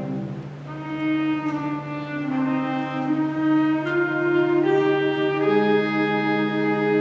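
Concert wind band playing a slow, sustained passage: held brass and woodwind chords over a steady low note, the harmony changing every second or so after a brief softening near the start.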